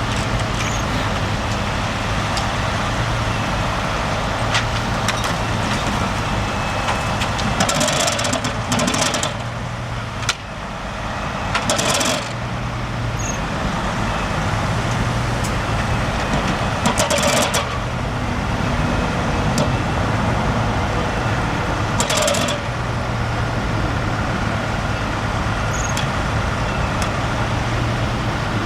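Steady road and engine noise of a car driving on snowy roads, with a low hum throughout and a few short swishes along the way.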